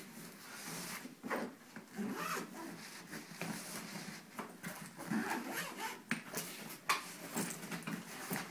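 Soft-sided fabric suitcase being zipped and handled: irregular zipper rasps and fabric rubbing, with a few sharp knocks as the case is tipped over onto its side.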